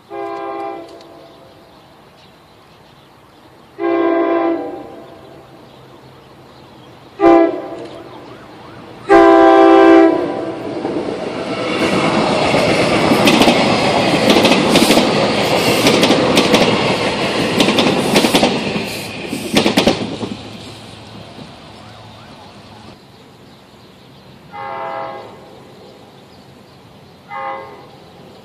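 SEPTA electric multiple-unit train sounding its horn in the grade-crossing pattern (long, long, short, long), then passing close by over the crossing with a loud rush of wheel and rail noise and sharp clacks of wheels over joints. Two more, fainter horn blasts near the end.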